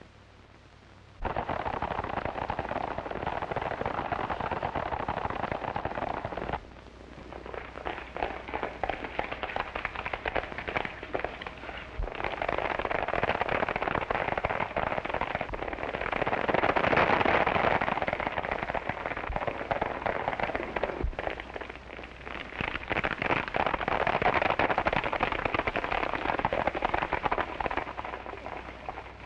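Hoofbeats of several horses galloping, a dense, rapid clatter that starts about a second in, drops back briefly around six seconds, then swells again.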